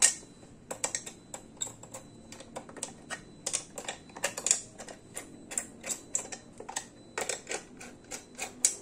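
L-shaped Allen key screwing the hex bolts back into a compression driver's back cover: a run of short, irregular clicks and ticks as the key catches and turns in the bolt heads.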